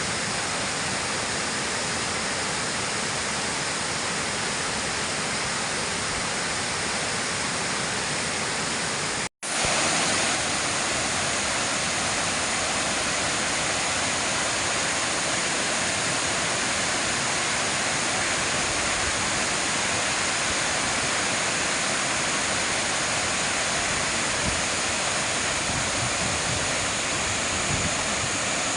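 Bou Sra Waterfall's water falling and rushing, a steady, even roar. About nine seconds in it cuts out for an instant, then carries on slightly louder.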